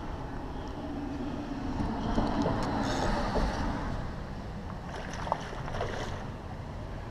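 A hooked oscar splashing and thrashing at the water surface on the line, in splashy bursts about two to three seconds in and again around five to six seconds, over steady wind noise on the microphone.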